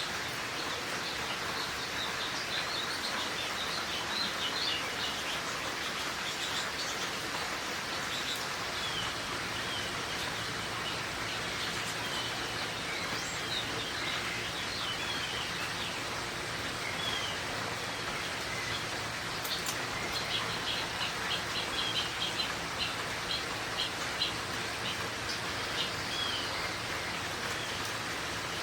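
Steady rain shower falling, with small birds chirping over it; the chirps come thicker in a quick run in the latter part.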